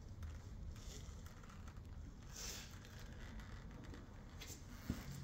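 Quiet room tone: a low steady hum with faint rustling, a brief hiss a little over two seconds in and a single sharp click near the end.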